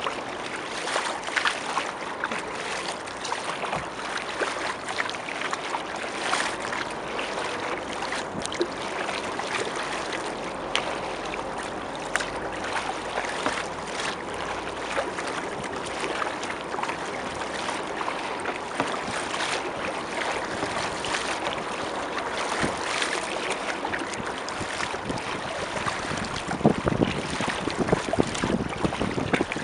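Steady water splashing and lapping around a moving kayak heard close to the water line, with scattered sharper splashes. Near the end, gusts of wind on the microphone add a louder, lower rush.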